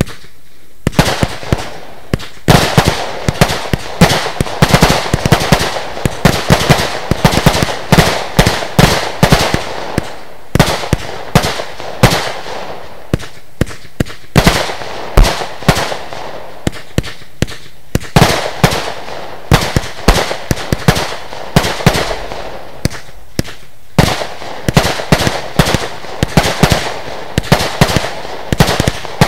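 Lesli Dezemberfest 512-shot compound firework cake firing: a rapid, almost unbroken string of shots, several a second, starting about a second in, with a few brief lulls between sections.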